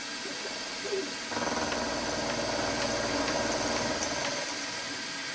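Milling machine with a small end mill taking a pass along a conrod blank: a steady machine hum, with a louder, rougher cutting drone that comes in about a second in and stops about a second before the end.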